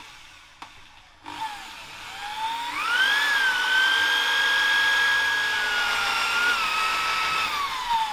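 Corded electric drill spinning up with a rising whine and running steadily while boring into a piece of metal angle. Its pitch dips and falls away near the end.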